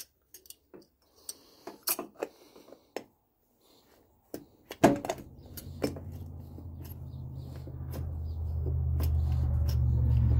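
Light metallic clicks and taps as the carburetor's top cover is worked down over its spring by hand. About halfway through there is a sharp click, then a steady low hum sets in and grows louder toward the end.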